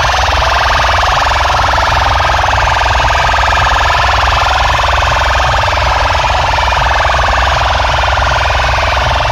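Siren-like wailing sound effect blasted at full volume through a large DJ speaker stack, harsh and distorted, with a heavy steady bass beneath it.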